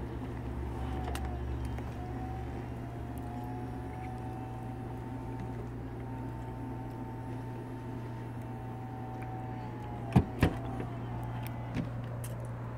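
2017 Mercedes-Benz E400 convertible's power soft top folding down: a steady motor whine starts about a second in and runs until about ten seconds in, then two clunks as the mechanism finishes, over a steady low hum.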